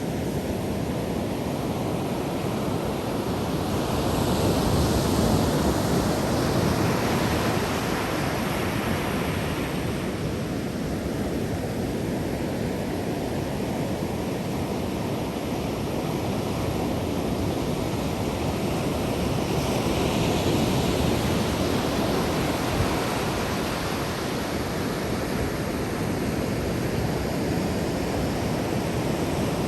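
Ocean surf: a steady wash of waves on the shore, swelling louder as waves break about four seconds in and again about twenty seconds in.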